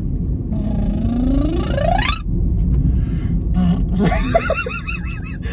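A lip-roll vocal siren: a buzzing voice glides steadily up from low to high pitch and breaks off about two seconds in. About two seconds later comes a short vocal sound whose pitch wobbles quickly up and down. A car's steady low road rumble runs underneath.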